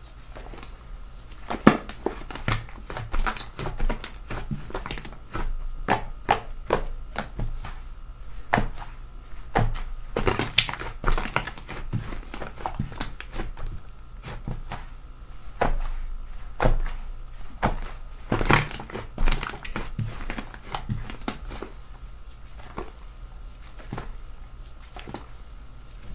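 Slime being squished and pressed by hand, giving irregular crackling clicks and pops. They thin out near the end.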